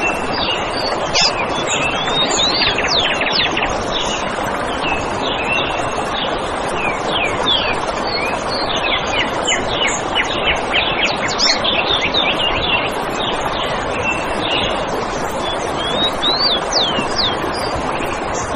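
Several birds chirping and whistling in quick, short calls over a steady rushing background noise, in a forest soundscape.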